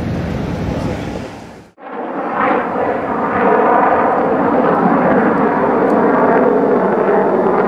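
A warbird's piston engine running, faded out within about a second and a half. After a brief silence, aircraft piston engines come in and rise to a steady drone, here the Lockheed P-38F Lightning's twin Allison V-12s, heard running rather than starting.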